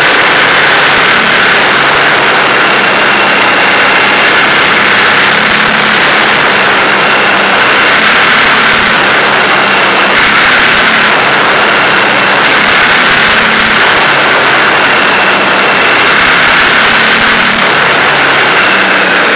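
Steady wind rush and road noise on a Suzuki V-Strom 1000 riding at about 110–120 km/h, with the bike's V-twin engine running at steady cruising revs underneath.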